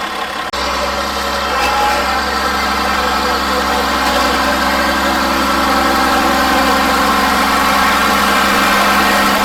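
Ford 8240 tractor's diesel engine running steadily as the tractor pulls down the track, growing slightly louder. The sound drops out briefly about half a second in.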